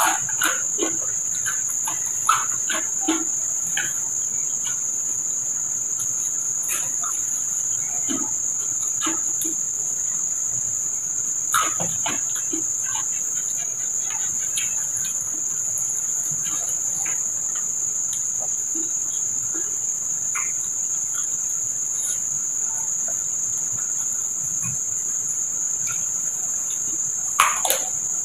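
Crickets chirring in a steady high band, with scattered soft clicks and smacks of chewing and of fingers picking food off a banana leaf. A louder crunchy bite comes near the end.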